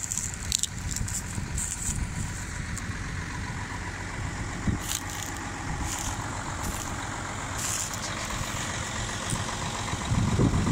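Case 7140 Magnum tractor's six-cylinder diesel engine idling steadily, growing louder near the end.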